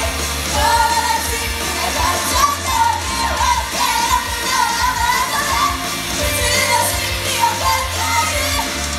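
An idol group singing live over loud pop-rock music with a heavy, steady bass.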